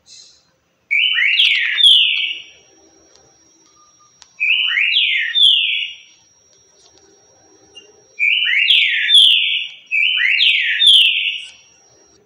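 Green-winged saltator (trinca-ferro) singing the song pattern breeders call "currucutil": four loud phrases of quick sliding whistled notes, the last two almost back to back.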